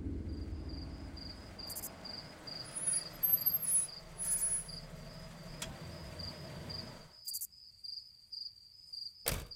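Crickets chirping in a steady, even pulse. A low rumbling drone runs underneath and cuts off suddenly about seven seconds in, leaving the crickets alone. There is a sharp click near the end.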